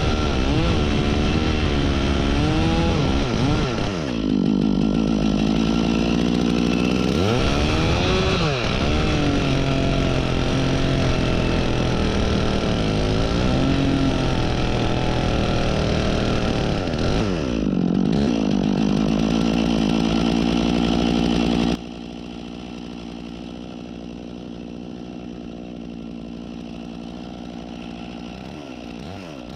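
Stihl chainsaw cutting into a tree trunk at full throttle, its pitch dipping as the chain loads up in the wood and climbing back again several times. About two-thirds of the way in the sound drops suddenly to a quieter level and keeps running.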